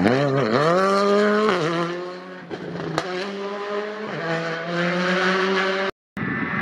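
Skoda Fabia Rally2 engine, a turbocharged four-cylinder, revving hard as the car accelerates out of a corner, the pitch dropping at gear changes about one and a half and four seconds in, with a sharp crack about three seconds in. The sound cuts out briefly near the end, then the engine is heard again.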